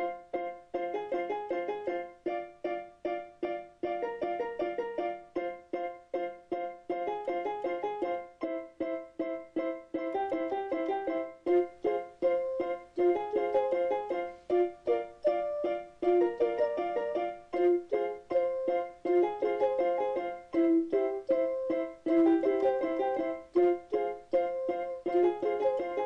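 Background music: an instrumental tune of short, quickly fading pitched notes in a steady rhythm, getting somewhat louder about halfway through.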